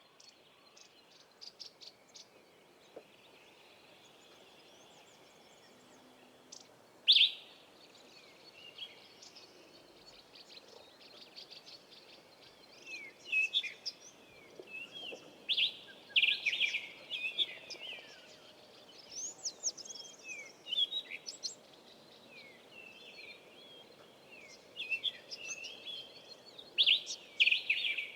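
Several wild birds calling and singing in bush, with short chirps and whistled glides. The calls are sparse at first, with one loud call about seven seconds in, and grow busy and overlapping in the second half. A faint steady high tone runs under the first few seconds.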